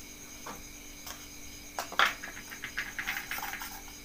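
A metal spoon and a steel mixer jar knock and scrape as ground masala paste is emptied into a bowl of ground dal. There is a loud clack about two seconds in, then a quick run of small taps and scrapes, over a faint steady high-pitched background hum.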